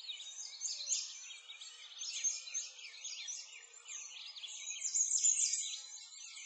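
A chorus of many small birds chirping and twittering at once, short overlapping calls with no pause.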